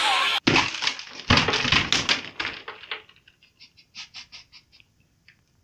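Hollow chocolate Easter egg being smashed open: a sharp crack about half a second in and a second one about a second later, then a run of quieter crackles and rustles that fades out.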